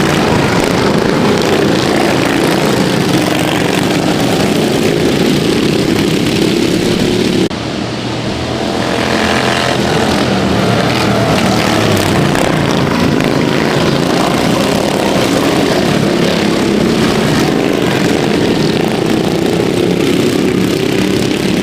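Several racing lawnmower engines running hard as the mowers race around the track. There is a sudden break about seven seconds in, then one engine's pitch rises as it revs up.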